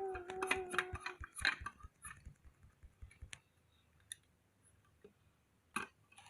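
A quick run of small clicks and taps from handling small hard objects, with a held steady tone in the first second. It then falls quiet apart from one sharp click near the end.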